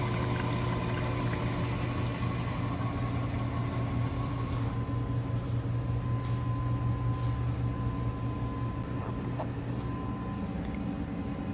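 Steady low mechanical hum. Some high hiss drops away about four seconds in, and a thin high whine sounds through the middle.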